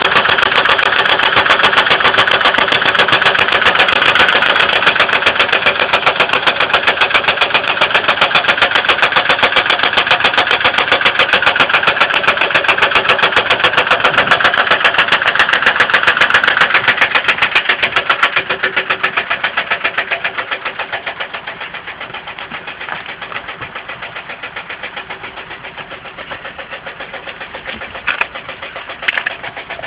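A 2002 Ford Windstar's 3.8-litre V6 engine running at idle with a rapid, even knocking and tapping, getting quieter about two-thirds of the way through. The engine's oil has turned milky light brown and risen in level, which the owner suspects is coolant getting into the oil.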